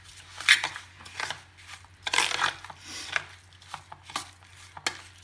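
Steel spoon scraping and knocking against a steel bowl in short, irregular strokes, stirring a thick, crumbly mix of semolina and curd.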